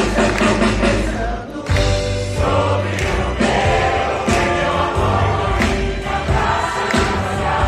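Several voices singing together in chorus over a band with a heavy bass line. There is a brief drop about one and a half seconds in.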